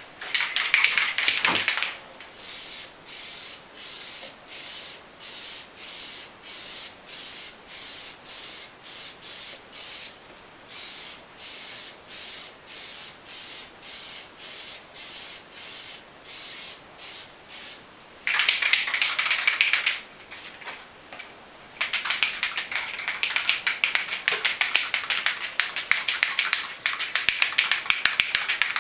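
Aerosol can of Plasti Dip rubber coating spraying in long hisses, near the start, again around eighteen seconds in, and from about twenty-two seconds to the end. Between them come quieter short pulses of hiss, about twice a second.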